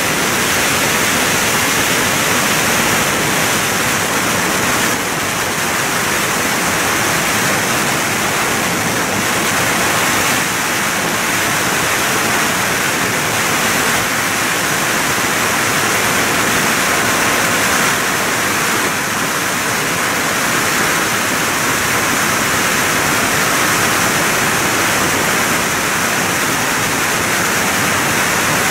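Freefall wind rushing over the microphone of a skydiver's camera: a loud, steady rush of noise that never lets up.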